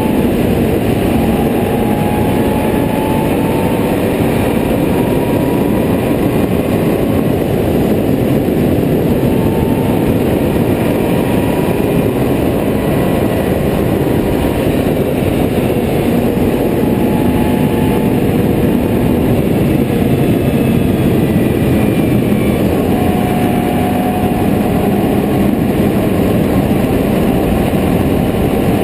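Can-Am Renegade 800R ATV's V-twin engine running at road speed, a steady drone that drifts gently up and down in pitch.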